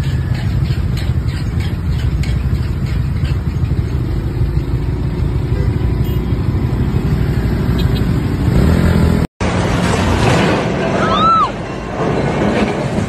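Motor scooters and cars in halted traffic make a steady low rumble of engines. It cuts off about nine seconds in and gives way to lighter street noise with two short, high, rising-and-falling calls.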